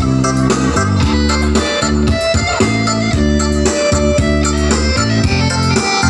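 Band music with plucked guitar over a bass line that moves from note to note.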